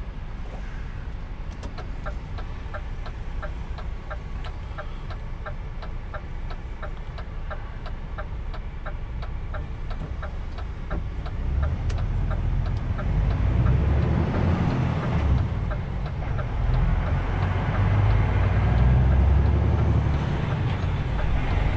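Truck engine heard from inside the cab, running steadily under a regular light ticking, about two ticks a second. About halfway through the ticking gives way and the engine grows louder as the truck accelerates.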